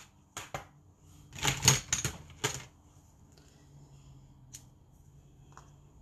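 Clear plastic stamp case and acrylic stamp block handled on a desk: a run of sharp plastic clicks and taps through the first two and a half seconds, then a faint low hum with a couple of small ticks.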